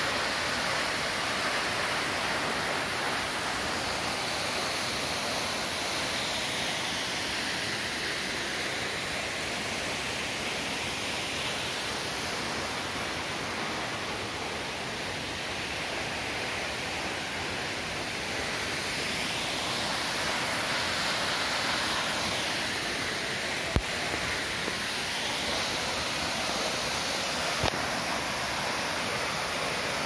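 Steady rushing of a tall waterfall plunging into its pool, an even wash of falling water. Two brief sharp clicks sound over it near the end.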